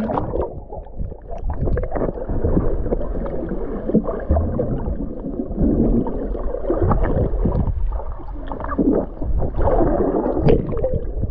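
Underwater sound picked up by a submerged GoPro: muffled sloshing and bubbling of sea water around the camera, with no high end. It swells several times in the second half.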